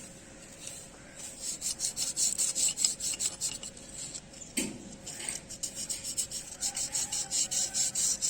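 Motorcycle disc brake pad being rubbed back and forth on emery paper in quick scraping strokes, about four a second, to sand off the dust and grit that make the brake squeal. A dull knock comes about four and a half seconds in.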